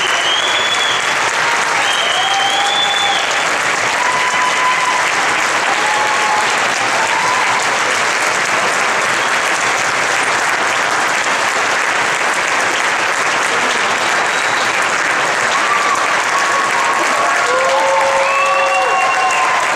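Audience applauding steadily, with scattered cheers and whoops rising over the clapping, more of them near the end.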